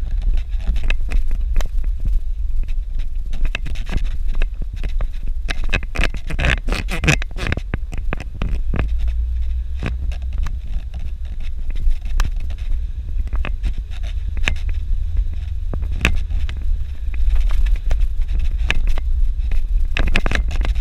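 Suzuki Jimny driving over a rough dirt road: a steady low engine and road rumble with frequent knocks and rattles from the bumpy surface, heaviest a few seconds in and again near the end.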